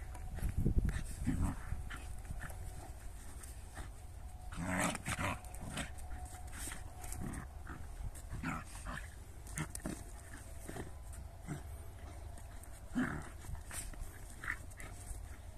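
A Jagdterrier puppy and a shepherd dog play-fighting, with scattered short dog noises and scuffling, clearest about five seconds in and again near thirteen seconds. A low rumble runs through the first two seconds.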